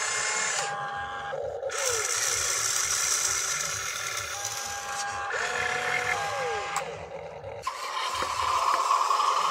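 Small electric motors and gearboxes of a radio-controlled excavator whining as its arm and upper body move, starting, stopping and gliding up and down in pitch several times. From about 8 s in, a louder, steadier motor whine as the RC dump truck drives.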